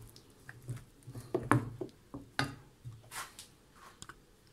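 Wooden spoon stirring a thick sweet-potato filling in a glass bowl: a few short scraping strokes and light knocks of the spoon against the glass.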